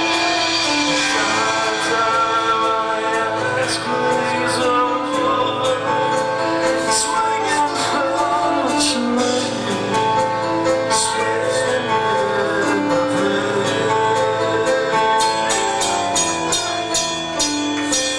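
Live metal band playing with sung vocals, long held notes over a steady beat of drums and cymbal hits.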